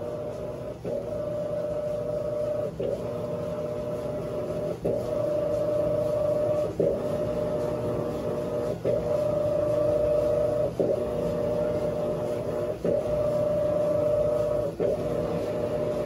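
Electrolux LAC17 top-loading washing machine agitating a load of blankets: its impeller drive motor hums steadily, breaking off briefly about every two seconds as the impeller changes direction.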